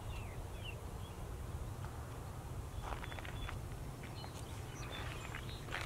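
Open-air ambience: a steady low rumble, like wind on the microphone, with a few faint bird chirps early on. A handful of light clicks and crunches come about halfway through and again near the end.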